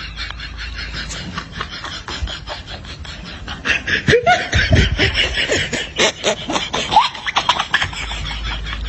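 Laughter: quick, breathy snickering, then a louder burst of laughing with falling pitch from about four seconds in, which dies down near the end.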